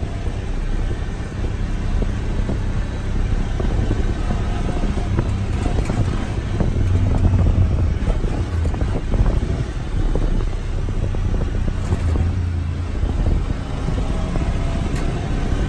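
Off-road vehicle engine running at steady cruising speed on a dirt road, with a low hum, tyre noise and many small knocks and rattles from the bumps.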